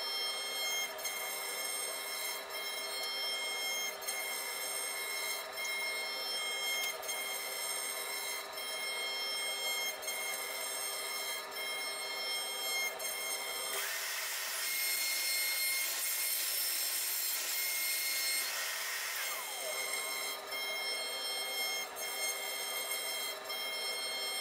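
CNC router spindle running with a steady high whine while its tapered bit mills a wood block. About halfway through, a louder hiss of cutting joins in for around five seconds, then fades back to the plain whine.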